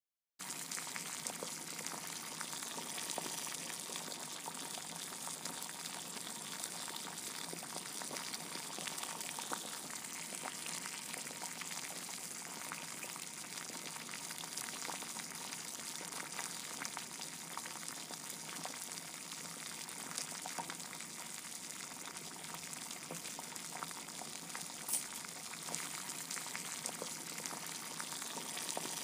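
Steady crackling hiss, like food sizzling, with scattered faint pops. It starts abruptly about half a second in, and a single sharper click comes near the end.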